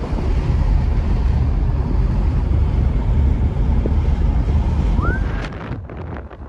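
Wind buffeting and road rumble in a car driving along a country road, a heavy low rumble. About five seconds in a short rising whistle is heard, and just after that the rumble drops and becomes choppier.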